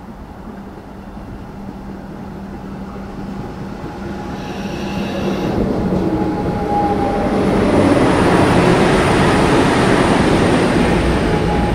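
Comeng electric suburban train pulling into the platform, its rumble and wheel noise growing steadily louder as it draws alongside and then holding steady. A brief high tone sounds about four and a half seconds in.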